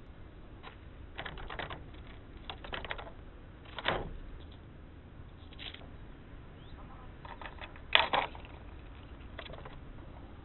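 Red squirrel foraging right at the microphone: irregular clusters of short clicks and scratches, loudest about four and eight seconds in.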